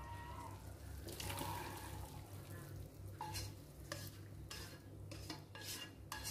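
A metal spatula scraping food out of a tilted wok into a glass bowl, with a run of short scrapes and knocks against the pan in the second half, over a steady low hum.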